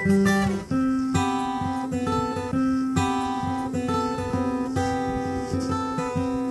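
Background music: acoustic guitar playing chords with a steady rhythm.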